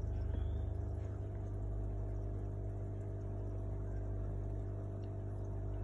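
Steady low electrical hum of running aquarium equipment, a motor drone with a few fixed tones that holds unchanged throughout.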